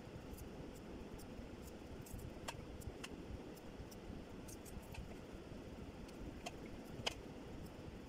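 A hand moving raw potato sticks: faint scattered clicks and taps over a low steady rumble, with one sharper click about seven seconds in.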